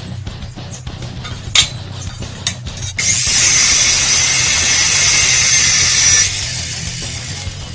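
Metal chop saw cutting through a rusty steel channel: a loud, steady, high-pitched cutting screech lasting about three seconds, starting about three seconds in. Before it come a few short metal clicks as hinged steel leg bars are moved.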